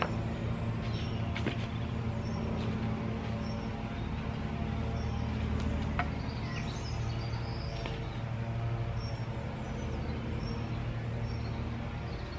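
Small birds chirping repeatedly over a steady low hum, with a couple of light clicks, one about a second and a half in and one near the middle.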